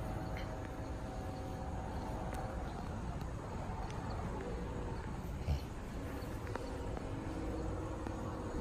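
Outdoor background: a steady low rumble with a faint hum, and one soft thump about five and a half seconds in.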